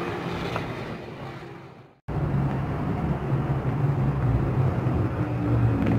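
Background noise fading out, then, after a brief drop to silence at an edit about two seconds in, a steady low rumble.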